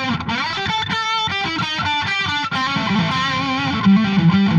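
Electric guitar through a Vox VT20X Valvetronix amp on its UK High Gain preset, playing a distorted lead line with bent, wavering notes.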